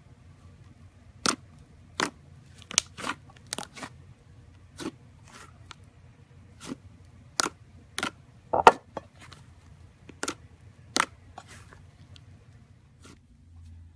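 Thick pink slime squeezed and pressed by hand, giving irregular sharp pops and clicks, about twenty of them, the loudest a little past the middle.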